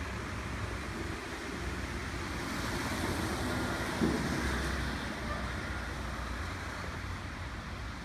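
Steady workshop background noise: a low hum under an even hiss, swelling a little in the middle, with one short knock about four seconds in.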